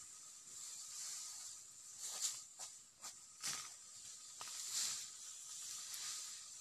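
Dry cogon grass rustling and swishing in several short bursts, the loudest between about two and five seconds in, over a steady high hiss.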